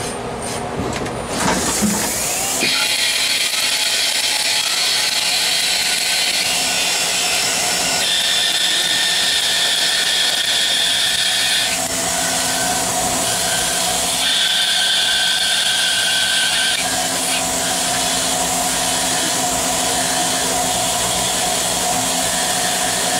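CNC turning centre (lathe) cutting a metal bar under flood coolant, with several tools in the cut at once. A steady machining noise with a high whine that changes pitch every few seconds as the cuts change, over a coolant hiss.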